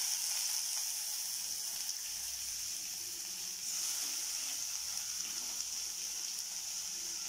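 Chopped banana flower, squeezed of its soaking water, sizzling in hot oil with onions in a kadai. The hiss is steady and grows louder about three and a half seconds in.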